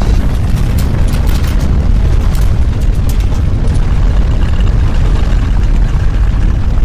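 Earthquake sound effect: a loud, continuous deep rumble, with scattered sharp crackles over it for the first two and a half seconds or so.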